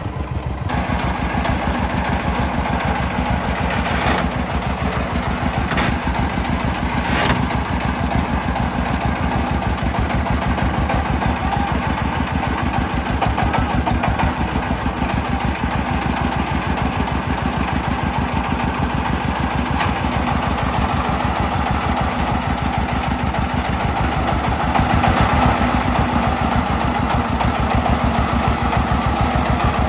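The single-cylinder diesel engine of a three-wheeled công nông farm truck chugging steadily, with a few sharp knocks along the way and a slight rise in loudness near the end.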